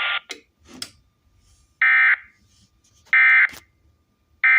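EAS/SAME end-of-message code: three short, identical bursts of shrill digital data tones about 1.3 s apart, marking the end of the relayed Required Weekly Test. Just before them a hiss of radio static cuts off with a couple of faint clicks.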